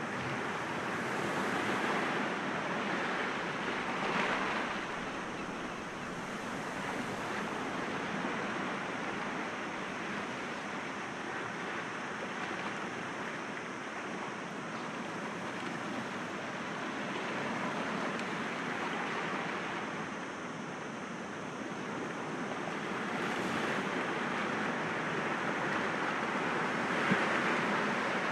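Sea waves breaking gently against rocks: a continuous wash of surf that swells and eases every few seconds, with one brief sharper sound near the end.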